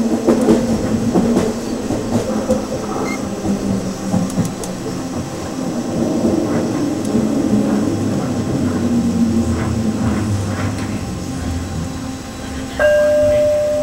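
Detroit People Mover car running on its elevated guideway, heard from inside the car: a steady rumble of wheels on rail with a low hum and scattered clicks. Near the end, as the car reaches a station platform, a single steady electronic tone sounds for about a second and a half.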